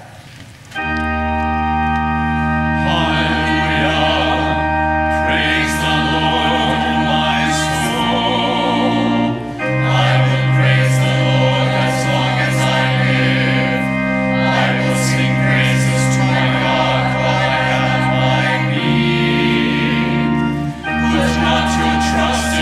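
Church choir singing with organ accompaniment. The organ enters about a second in with sustained chords over a deep pedal bass, and the choir's voices join a couple of seconds later, the chords changing every several seconds.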